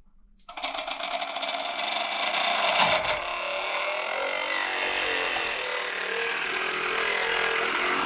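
Small DC motor of a 3D-printed centrifugal water pump switching on about half a second in and running steadily with a whine. Near the end, water begins gushing from the pump's outlet into the sink.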